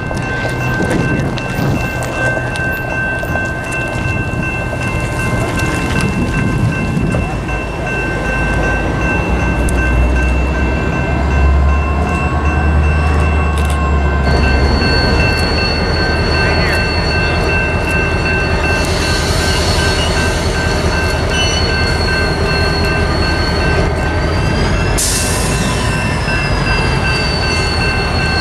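BNSF diesel locomotive rumbling past slowly as it hauls loaded scrap gondolas, the low engine rumble heaviest about halfway through. A steady high-pitched squeal runs throughout, and a brief sharp hiss comes near the end.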